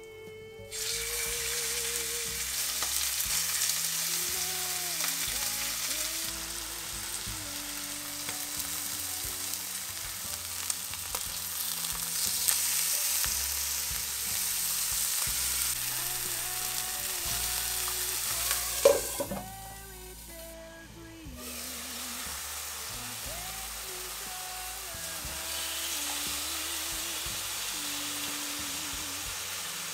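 Chicken breasts sizzling as they sear in hot olive oil, the sizzle starting about a second in as they go into the pan. About two-thirds through there is a sharp click, and the sizzle drops for a couple of seconds before resuming.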